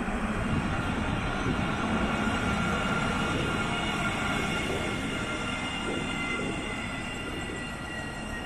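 Casablanca Alstom Citadis tram rolling slowly alongside the platform as it pulls into the stop. There is a steady rumble with a thin whine from its electric drive, and one tone falls in pitch near the end as the tram slows to a halt.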